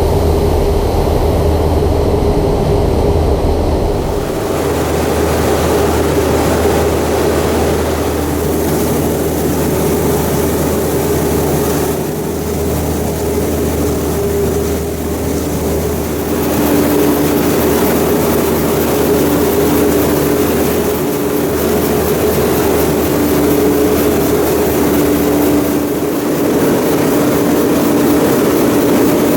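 Heavy diesel harvest machinery running steadily under load, with a low engine hum and higher steady tones; the tone shifts slightly about four seconds in and again around sixteen seconds.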